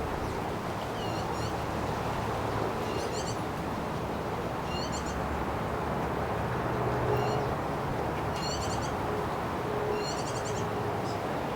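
A bird chirping over and over, a short call about every two seconds, over steady wind noise.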